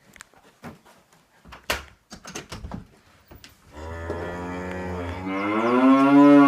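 Faint scattered clicks and knocks, then about four seconds in a long, low moo-like call from a sound-effects app, swelling louder and bending upward in pitch as it goes.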